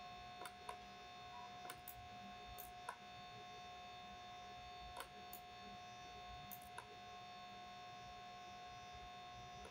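Faint steady electrical hum and whine from the recording setup, with about half a dozen soft, scattered computer mouse clicks.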